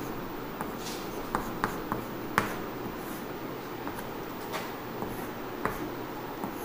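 Chalk tapping and scratching on a chalkboard as a word is written by hand, in short, irregular strokes.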